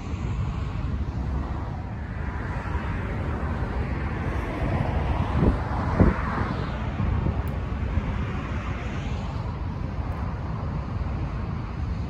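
Wind buffeting the microphone over the rush of rough surf. The hiss swells through the middle, and two dull bumps come about halfway through.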